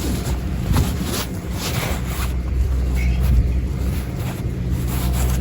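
Steady low rumble of a moving vehicle heard from inside its cabin: engine and road noise, with a few light knocks or rattles.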